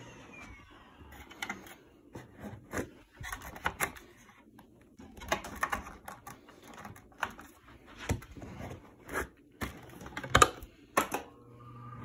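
Prolux Tritan canister vacuum winding down after being switched off, its whine falling away, then scattered light knocks and clicks of handling. Shortly before the end a low motor hum starts up again.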